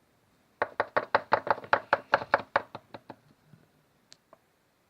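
A quick run of about twenty sharp taps on a hard surface, close together for about two and a half seconds, then a few faint ticks.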